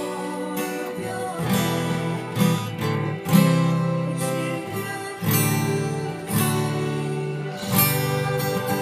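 Acoustic guitar strummed in a steady pattern of chords, with a stronger accented stroke roughly once a second and the chord changing every few strokes.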